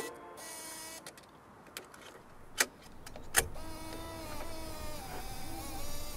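Radio receiver hiss with two sharp clicks under a second apart, then several wavering, slightly gliding whistle tones as the receiver is tuned.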